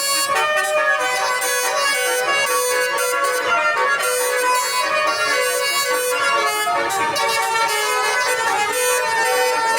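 Bus 'telolet' horn, a multi-tone air horn, playing a quick tune of held notes that change pitch several times a second, without a break.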